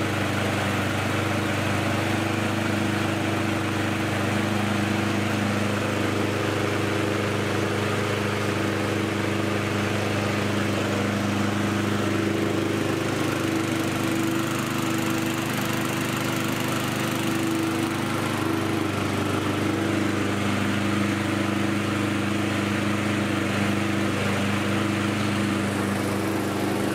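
Briggs & Stratton single-cylinder lawnmower engine running steadily at constant speed, smooth and even. Its speed is set by newly fitted governor springs, with a new flywheel keyway and a reset ignition coil: the engine runs nice and sweet-sounding.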